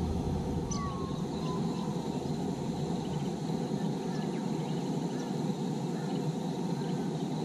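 Birds calling faintly over a steady low rushing noise, with a falling whistled call about a second in and a few scattered chirps after.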